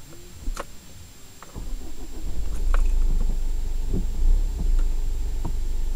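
A vehicle's engine heard from inside the cabin, a low rumble that grows louder about a second and a half in, with a few scattered clicks and knocks.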